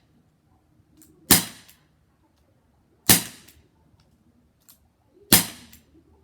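Three shots from a Crosman SNR 357 CO2 air revolver, about two seconds apart, each a sudden sharp pop that dies away quickly.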